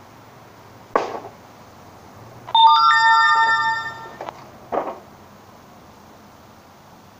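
A loud metallic clang about halfway through, ringing with several bell-like tones that fade for about a second and a half before being cut short, typical of a metal tool struck. A short dull knock comes about a second in and another about a second after the clang.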